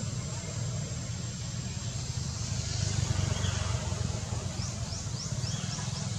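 Steady low outdoor rumble, with a quick run of short, high, rising chirps about two-thirds of the way in.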